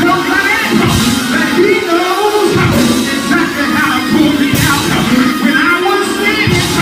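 Loud church music with singing voices, going on without a break.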